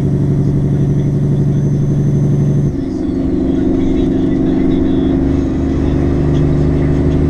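Semi truck's diesel engine running steadily under way, heard from inside the cab. Its pitch shifts suddenly about three seconds in, with a brief dip in loudness, then runs steady again.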